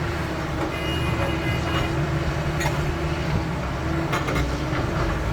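CAT 320 hydraulic excavator working, its diesel engine running steadily. There is a brief high squeal about a second in and a few sharp knocks later on.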